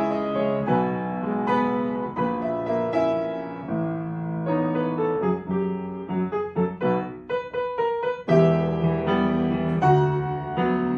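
Piano music: a melody over held notes, with a run of quick, short notes a little past the middle before fuller chords return.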